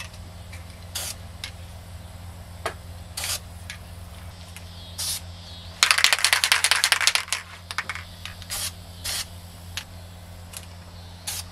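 Spray-paint rattle can, Krylon Camouflage khaki, fired in several short, separate hisses as paint is dabbed through grass. About six seconds in, the can is shaken hard for about a second and a half, its mixing ball rattling rapidly; this is the loudest sound.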